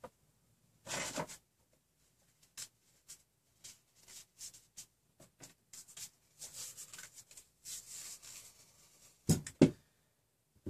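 Small clicks and rustles of things being handled on a workbench. Near the end come a couple of sharper knocks as hand tools are picked up from among the others.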